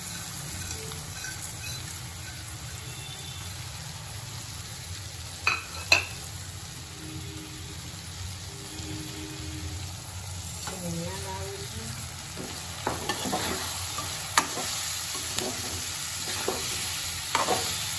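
Dry Maggi noodles and vermicelli being stirred with a steel spatula in a steel kadai over sautéed vegetables: a steady light sizzle with the spatula scraping and knocking against the pan. The loudest are two sharp knocks about five and a half and six seconds in, and the scraping grows busier in the last few seconds.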